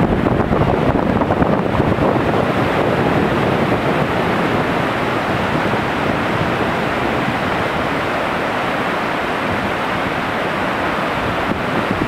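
Turbulent whitewater of river rapids at a small waterfall rushing steadily, with wind rumbling on the microphone.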